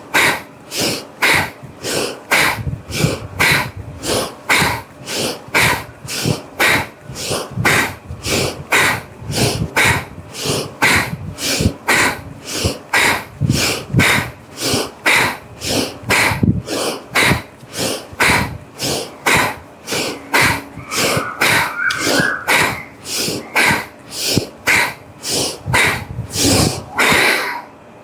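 Bhastrika bellows breathing: rapid, forceful breaths in and out through the nose in an even rhythm of about two a second, stopping just before the end.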